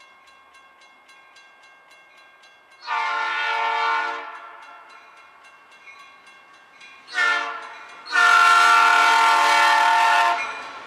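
Diesel locomotive air horn on Canadian Pacific SD60 6234 sounding the grade-crossing signal. It gives a long blast, then a short one, then a final long blast held for about two seconds as the locomotive reaches the crossing. Under it, the crossing bell dings steadily, and the rumble of the passing train rises near the end.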